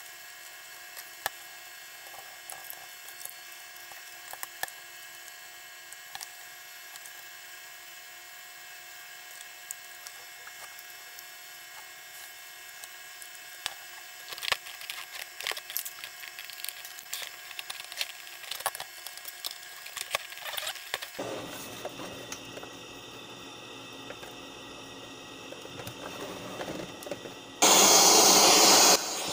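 Scattered light clicks and knocks of a plastic boombox case being handled and fitted back together. About two seconds before the end a sudden loud burst of hiss, radio static from the MP3/Bluetooth board's FM tuner with no station tuned, which then drops to a steady quieter hiss.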